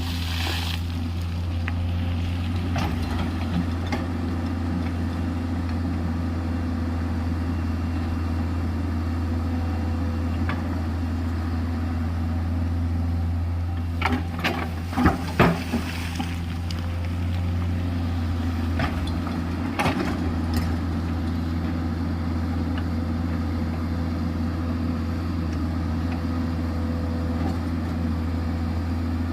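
JCB 210LC tracked excavator's diesel engine running steadily at a constant pitch. A cluster of sharp metallic knocks and clanks comes about halfway through, and a few more just under twenty seconds in.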